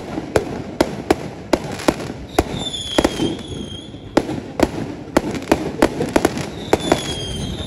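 Aerial fireworks bursting in steady succession, sharp bangs about twice a second. A high, slightly falling whistle rises over them about two and a half seconds in and again near the end.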